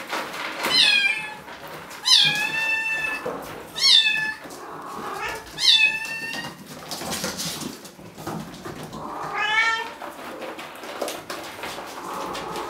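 Bengal kittens mewing: about five high-pitched mews, two of them drawn out to nearly a second, with a last one near the end of the run.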